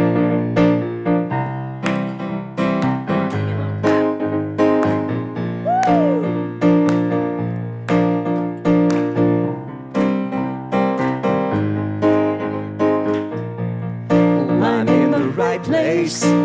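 Stage keyboard with a piano sound playing the introduction of a slow song, steady chords struck about twice a second. Voices begin singing over it near the end.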